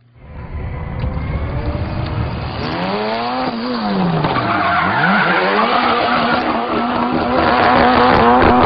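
Ford Fiesta rally car's engine revving hard, its pitch dropping and then climbing again, then held high and steady while the tyres squeal and skid through a continuous donut. It grows louder toward the end.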